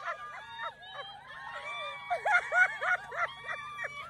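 Several women squealing and exclaiming in excitement, short rising-and-falling cries overlapping one another with few clear words; the bursts are busiest in the second half.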